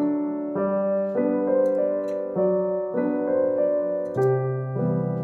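Background piano music, a gentle melody of sustained notes changing about every half second.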